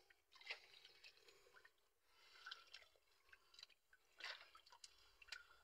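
Near silence with faint scattered clicks and rustles of a nylon gill net and fish being handled, with a slightly louder rustle about four seconds in.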